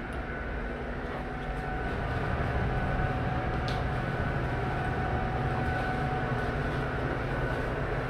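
Steady low machinery hum inside a yacht's cabin, with faint steady whines above it; it grows a little louder about two seconds in.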